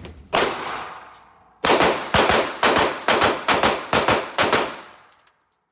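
Gunfire: a single shot with a long echo, then a rapid string of about a dozen shots fired at roughly four a second.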